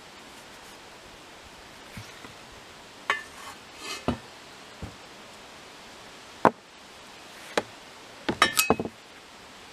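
A steel shovel head and the broken stub of its wooden handle being handled on a wooden table. A scrape and a series of sharp knocks and clinks come one at a time, then a quick flurry of clinks near the end, one of them ringing briefly.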